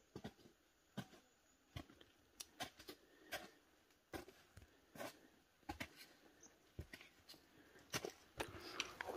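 Faint, irregular footsteps on a trail, one or two steps a second.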